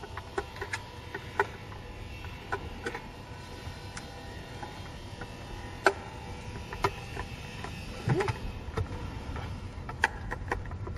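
Scattered light clicks and knocks as hands handle and fit a shower cabin roof panel, over a steady low background hum.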